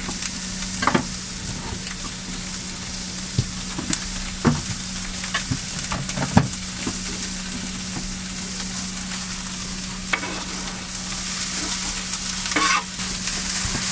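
Onions sizzling in butter in a frying pan, with scattered clicks and knocks of kitchen utensils. Near the end, chopped green vegetables are scraped into the pan from a cutting board and the sizzle gets louder.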